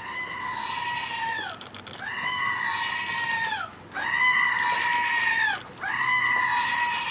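A man wailing a high, held note over and over, four times about two seconds apart, each note dropping off at its end like a goat's bleat.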